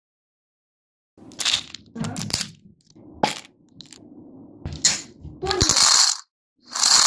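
Plastic flip-top cap of an M&M's tube being worked and snapped open, with a sharp click about three seconds in. Then the sugar-coated chocolate candies are poured out and clatter into a clear bowl, loudest near the end.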